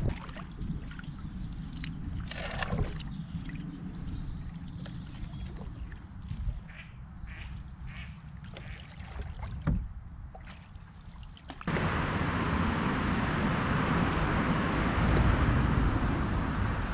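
Wind rumbling on an action camera's microphone while a canoe is paddled, with short, light splashes of paddle water. About twelve seconds in it changes abruptly to a louder, steady rush of wind and water noise.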